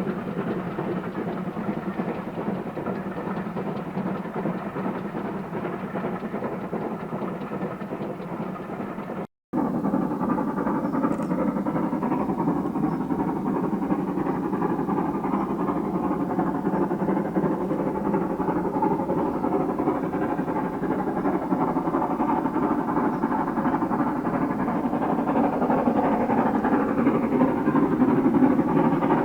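Steam locomotive 42968, an LMS Stanier Mogul 2-6-0, running with its train. The sound breaks off for a moment about nine seconds in, comes back louder, and grows louder still near the end as the train draws closer.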